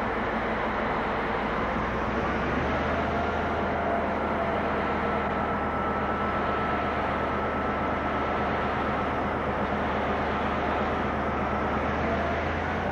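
Diesel locomotive engine running under load as the train pulls away, a steady low drone whose pitch steps up about two and a half seconds in.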